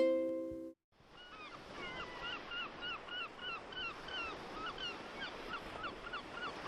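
A ukulele chord rings out and stops under a second in. After a short gap a flock of birds starts calling, many short honking calls in quick succession over a steady hiss.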